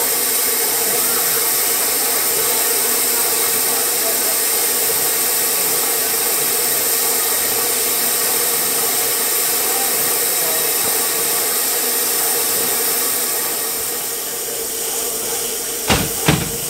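Steady hiss from a narrow-gauge steam train, with a faint steady hum under it. Near the end, two sharp knocks about half a second apart.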